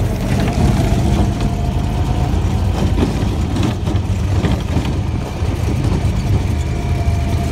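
Vehicle engine and road rumble heard from inside the cab while driving over rough ground, with scattered knocks and rattles from the jolting.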